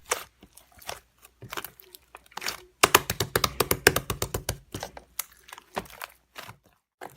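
Slime being pressed and squished by hand: a run of sharp sticky clicks and crackles as air pockets pop, thickest in the middle of the stretch and dying away near the end.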